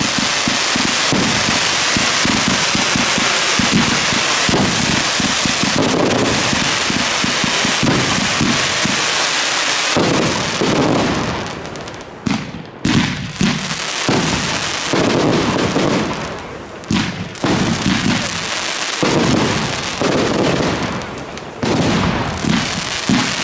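Consumer firework batteries, Piromax Fireball XXL among them, firing together: a dense, continuous run of rapid shots and bursts for the first half, then volleys broken by several brief lulls.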